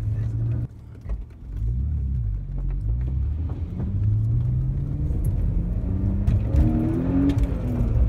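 Car driving over a wooden plank bridge deck, heard from inside the cabin: a steady low rumble from the tyres on the boards, with scattered knocks in the second half.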